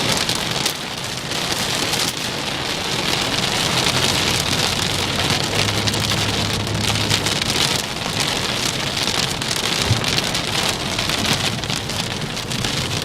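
Heavy rain pouring down in a thunderstorm, a steady dense patter of drops on surfaces.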